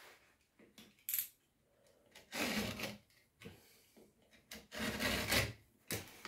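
A sandpaper strip is slid through a wooden jig and cut off against a metal straightedge with a utility knife. There are two rough rasping scrapes, about two seconds apart, with small clicks and taps between them.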